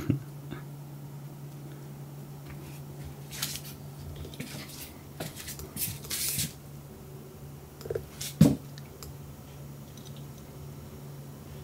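Steady low hum of a quiet room, with a few short soft rustles and scrapes and one sharper knock a little past halfway.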